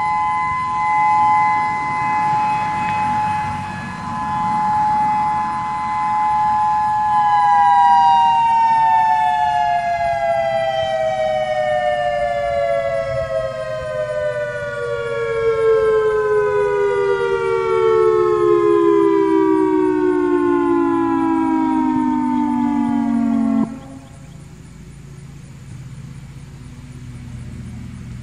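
Federal Signal EOWS-612 electronic outdoor warning siren sounding its Alert signal, two steady tones together. About seven seconds in, both begin a long falling glide as the signal winds down, and it cuts off suddenly about two-thirds of the way through.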